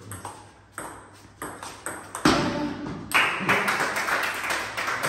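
Table tennis rally: the celluloid ball clicks off the bats and table about every half second, with a loud hit a little over two seconds in. A louder, unsteady rush of sound follows for about two seconds.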